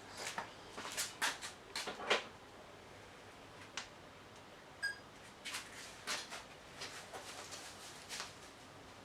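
Scattered light clicks, knocks and rustles of objects being handled, heard in a small room, with a brief high beep about five seconds in.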